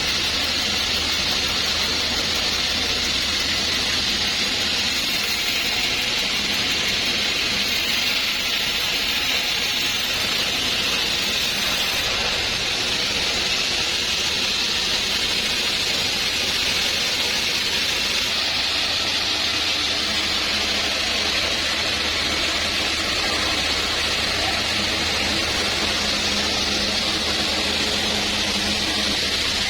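A sawmill saw running steadily through a trembesi (rain tree) log, giving an even, unbroken hiss of cutting over a low machine hum.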